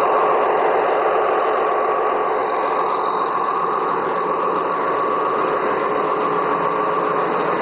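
A Gauge 1 model freight train rolling past: the wheels of the wagons rattle fast and steadily on the track, over the steady whine of the model diesel locomotive's drive.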